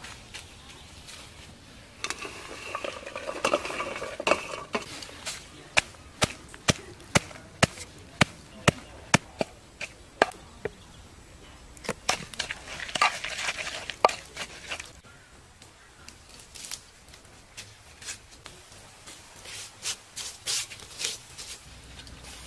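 Wooden pestle pounding chilies in a wooden mortar: a run of sharp knocks about two a second through the middle, with rustling and scattered knocks around it.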